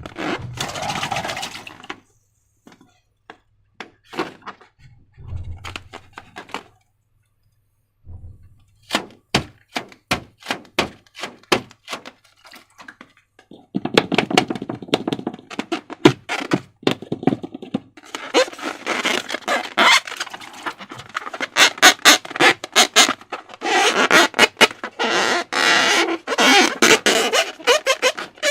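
Slime being squished and worked by hand: a few low thumps, then sharp sticky clicks that build from about halfway through into dense, continuous squelching and crackling.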